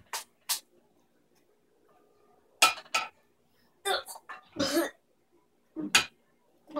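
A few sharp, separate knocks of a wooden spoon beating at an onion, with a longer cough-like vocal noise in the middle.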